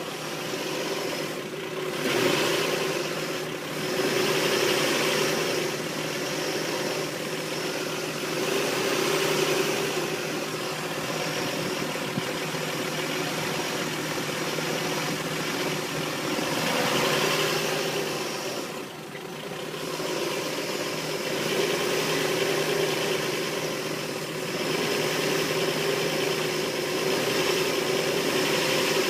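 Nissan Xterra V6 engine idling roughly after a head gasket job, with its level rising and falling every few seconds. The owner cannot get it to run smoothly and suspects a vacuum leak.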